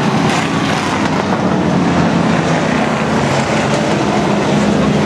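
A pack of Outlaw Sportsman race cars running at speed around the oval, their engines blending into one steady, loud noise.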